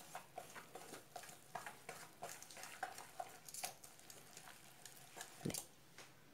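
Wire whisk stirring thick gram-flour batter in a stainless steel bowl: faint, irregular clicks and scrapes of the wires against the bowl, several a second, with a louder knock about five seconds in.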